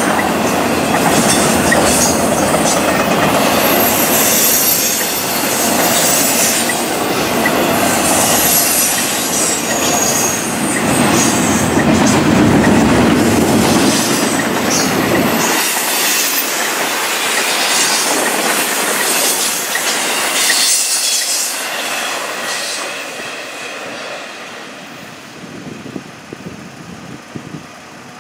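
Freight train of trailers on flatcars rolling past close by, a dense steady rumble and clatter of wheels on rail with high thin wheel squeals in the first half. About halfway through the deep rumble drops out, and the sound grows fainter over the last several seconds as the cars keep passing.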